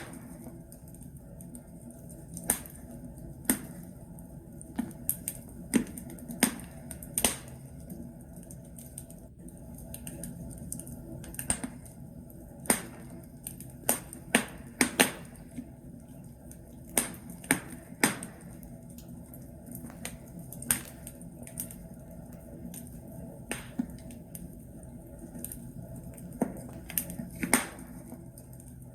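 Wood logs burning in a fireplace, crackling with irregular sharp pops and snaps over a low steady rumble of the fire.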